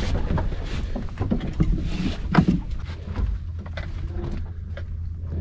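Knocks and clatter of a boat hook and anchor rope being handled against the side of a small boat, scattered through the first few seconds, over a steady low rumble.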